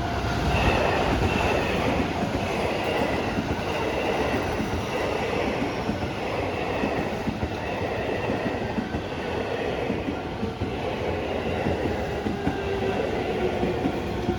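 Electric train running along the rails close by: a steady, dense rumble of wheels on track, with faint whining tones that slowly fall in pitch.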